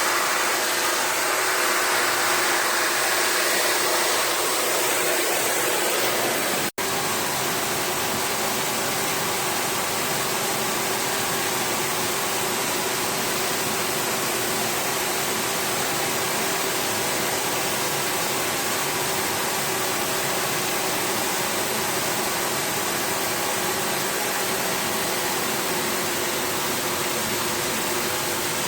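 Steady rush of a water spray rinsing the heat-exchanger coil of a disassembled stand air conditioner, with a faint steady hum beneath. The sound breaks off for an instant about seven seconds in.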